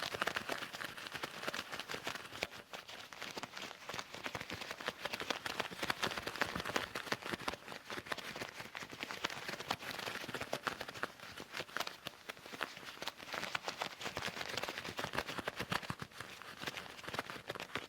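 Leather gloves being handled and rubbed, making a dense, continuous run of quick crackles and small taps.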